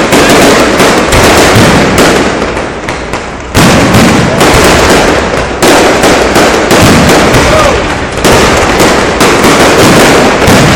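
Fireworks going off without pause: dense, loud crackling bangs, with a fresh heavy burst about every two to three seconds.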